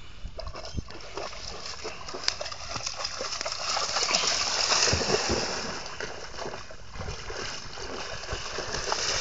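A German shepherd splashing through water, a continuous churning slosh with many small splashes, building up and loudest about four to five seconds in, then easing.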